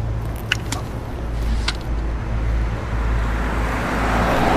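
Steady low vehicle rumble of street traffic, with a few short high clicks in the first two seconds and a rising rush of noise that swells toward the end.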